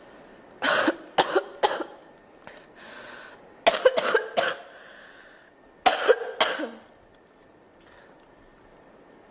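A girl coughing in three short fits of several coughs each, with a breath drawn in between the first two fits.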